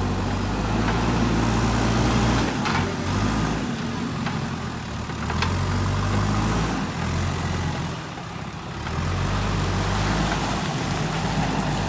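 JCB 3DX backhoe loader's diesel engine running, its note swelling under load for a few seconds at a time and easing off in between, with a couple of short sharp knocks.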